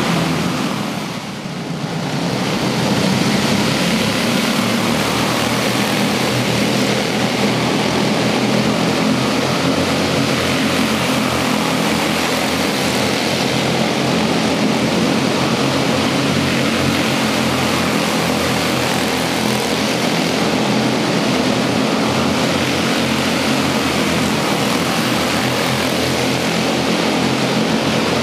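Several quarter midget race cars' small single-cylinder Honda 160-class engines running together at racing speed, a continuous layered engine buzz inside a large hall. It dips briefly about a second in.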